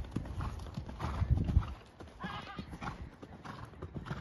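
A horse's hooves thudding on a sand arena surface at the canter, in an uneven run of dull beats.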